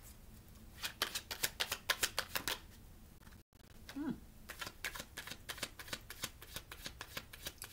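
A deck of tarot cards being shuffled by hand: two runs of rapid card flicks with a short pause near the middle.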